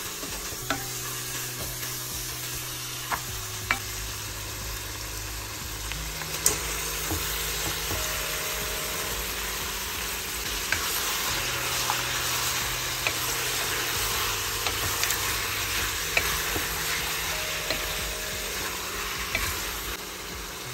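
Sliced onions and whole spices sizzling in oil in an aluminium pot, stirred with a wooden spoon that clicks against the pot now and then. Partway through, raw meat chunks go in, and the sizzling grows louder as they are stirred.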